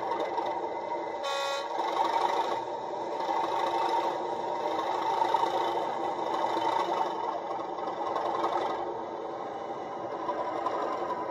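Model class 37 diesel locomotive's sound: a steady diesel engine sound as the model pulls slowly forward, with one short horn blast about a second in.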